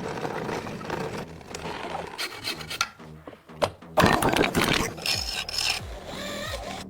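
Bamboo being rasped and rubbed in uneven scraping strokes, getting louder about four seconds in.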